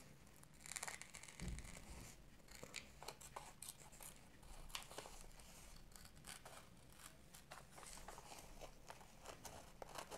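Scissors cutting along a pencilled outline in a thin glossy magazine page: quiet, irregular snips, many close together.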